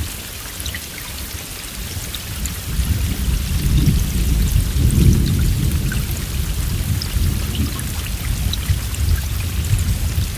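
Steady heavy rain, with individual drops ticking through the hiss, and a low roll of thunder that swells a few seconds in, is loudest about halfway through and dies away.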